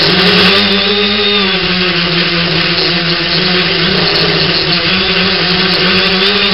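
X900 tricopter's three brushless motors and propellers running with a steady whine, recorded from on board. The pitch dips and rises again a couple of times as the throttle changes.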